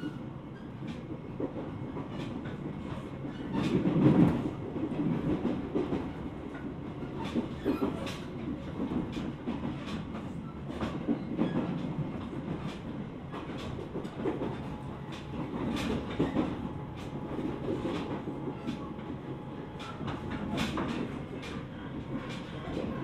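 JR East 701 series electric train (KuMoHa 701-30) running, heard from inside its leading car: a steady rumble of wheels on rail with scattered clicks over rail joints. The noise swells briefly about four seconds in, and a faint steady hum joins in the second half.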